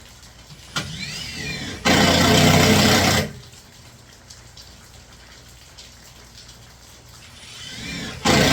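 Impact driver driving 2-inch deck screws through a strap into a barrel, twice: each time the motor whirs up with a rising whine, then the impact hammering runs for a second or more. The second run starts near the end.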